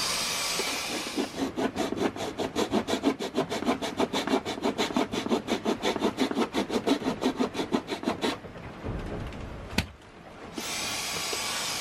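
Hand saw cutting wooden boat furniture in quick, even strokes, about five a second, for around seven seconds, then stopping. The wood is being trimmed back where it rubbed against its neighbour and caused a squeak. A steady hiss comes before the sawing and returns near the end, and there is a single sharp click shortly after the sawing stops.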